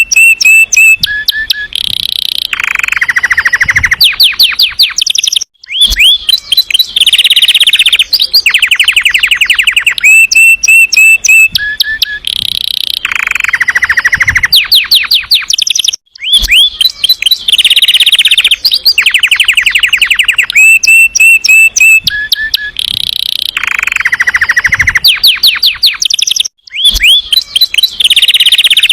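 Domestic canary singing a loud song of fast rolling trills and whistled phrases, breaking off briefly about every ten seconds.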